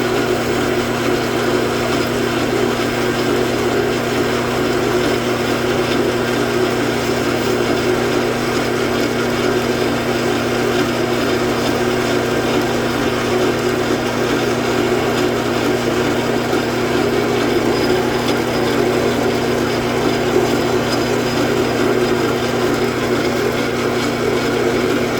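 Metal lathe running steadily under power feed while the tool takes a light cut along the workpiece, turning a Morse taper: an even machine hum with no change in pitch.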